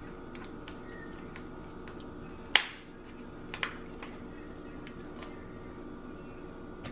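Lobster tail shell clicking as the raw meat is worked up and out of it by hand. There is one sharp snap about two and a half seconds in and two smaller clicks a second later, over a steady background hum.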